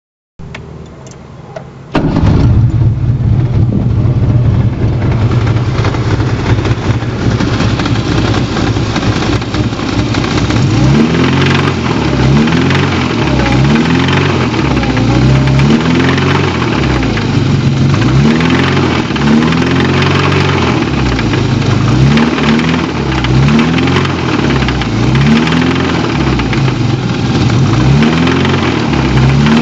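Fiat 128's 1.3-litre four-cylinder engine coming in loudly about two seconds in and running, with a rising sweep in pitch recurring every second or two from about a third of the way on. This is the strange engine noise, which the owner says appeared from one day to the next.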